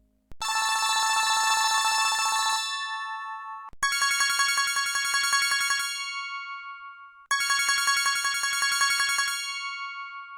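Can-U my5000 mobile phone ringtone: a rapid trilling electronic ring, sounded three times with short pauses between.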